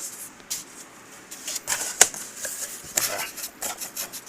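A shipping package being opened and its contents handled: scattered scrapes, rustles and clicks, with one sharp snap about two seconds in.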